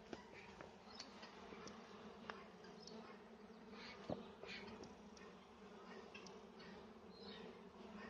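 Faint, steady hum of western honeybees (Apis mellifera) buzzing over an opened hive's frames, with a few light clicks.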